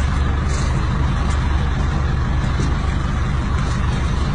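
Minibus engine idling, a steady low rumble.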